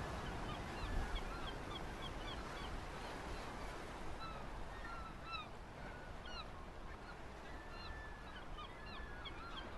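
Many short bird calls and chirps, scattered throughout, over a steady background hiss.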